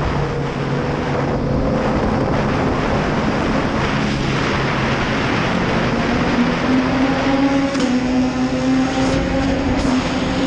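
Inline-four superbike engine under hard acceleration, its note climbing and stepping in pitch as it is quickshifted up through the gears, with a few sharp crackles near the end. The exhaust echoes off the tunnel walls.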